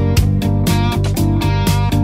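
Background music with a steady, quick rhythm.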